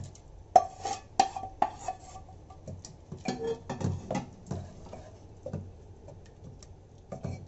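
Wooden spatula clacking and scraping against a cooking pot as onion-tomato masala is stirred into boiled spinach and corn. The knocks are irregular, busiest in the first half, with a few more near the end.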